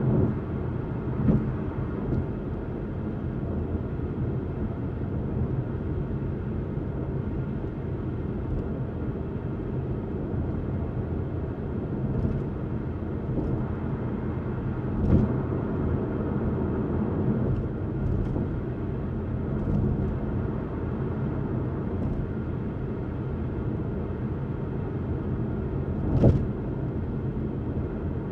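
Car travelling at highway speed: a steady low rumble of road and tyre noise, broken by a few short thumps. The loudest thump comes near the end.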